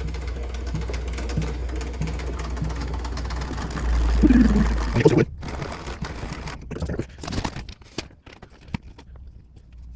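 Height-adjustment crank of a DeWalt DW734 thickness planer being turned to lower the cutter head: a rhythmic mechanical whir over a low rumble. It stops suddenly about five seconds in, followed by a few light clicks and knocks.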